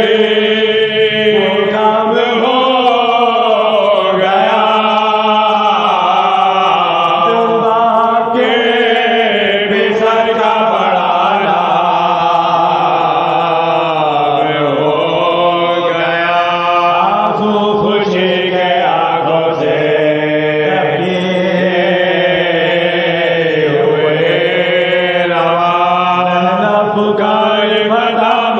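Soz khwani, a Shia elegiac chant: unaccompanied voices singing slow, ornamented melodic lines over a steady low held note.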